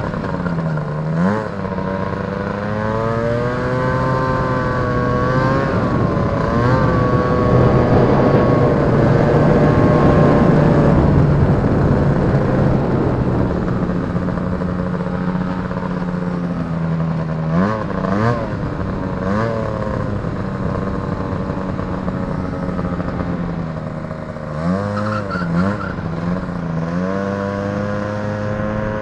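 Snowmobile's Rotax 503 two-stroke engine running under way, its pitch rising and falling with the throttle. It speeds up in the first few seconds and holds a higher pitch with a rush of running noise through the first half. It then eases back to a steadier, lower speed, with short throttle blips about two-thirds of the way in and again near the end.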